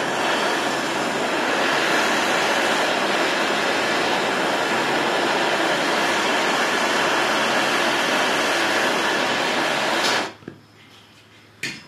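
Gas torch flame burning with a steady, loud rushing hiss, shut off about ten seconds in.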